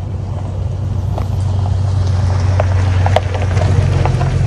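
A vehicle's engine running steadily, with tyres crunching over a gravel road from about a second and a half in.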